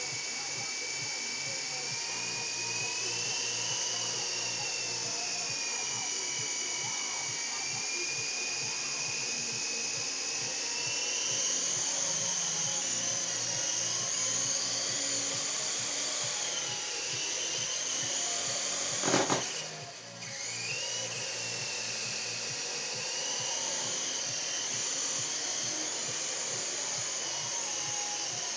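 Syma S031G coaxial RC helicopter's electric motors and rotors whining steadily in flight, the pitch rising and falling with the throttle. About two-thirds of the way through comes one sharp knock, after which the whine briefly drops away and then climbs back up.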